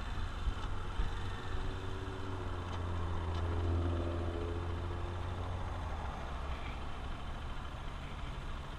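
Honda XR150L's single-cylinder four-stroke engine running steadily under way, under a rush of wind noise; the engine note grows louder around the middle.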